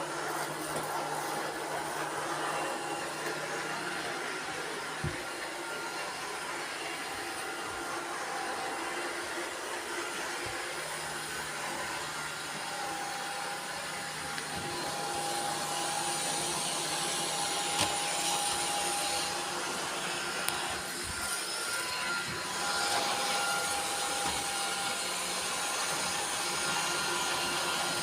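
Several robot vacuum cleaners running at once: a steady whir with motor whines that shift in pitch and strength, and a few sharp knocks.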